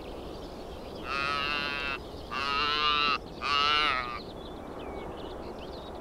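Newborn saiga antelope calf bleating three times, each call under a second, while held up in a rope sling to be weighed.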